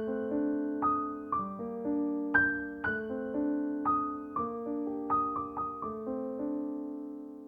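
Background music: a gentle piano or keyboard melody of single struck notes, each ringing out and fading, with the last note dying away near the end.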